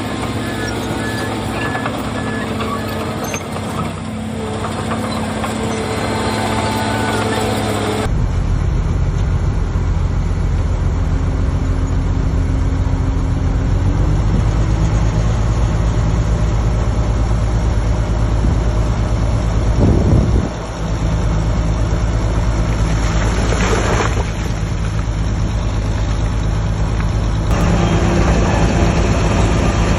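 Heavy diesel engines of a bulldozer and dump trucks running steadily under load. The sound changes abruptly twice, with a low surge about two-thirds through and a short hiss soon after.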